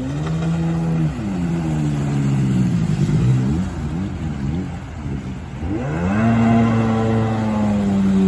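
Sea-Doo HX personal watercraft's two-stroke engine revving up and down as it carves turns on the water. The revs fall away about five and a half seconds in, then climb sharply and hold steady and high near the end.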